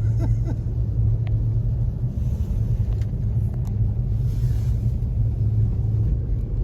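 Toyota Tacoma pickup driving on snowy roads, heard from inside the cab: a steady low rumble of engine and road noise, with a few faint clicks.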